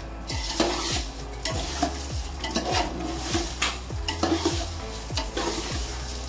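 A metal spoon stirs and scrapes vermicelli and crushed coconut frying in a large aluminium pot, over a steady sizzle. There is a scraping stroke about once a second as the strands are turned over.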